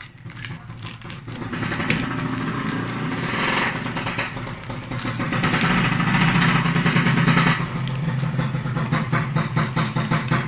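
An engine running steadily, building over the first two seconds and loudest around six to seven seconds in, with light crinkling of a plastic bag being handled.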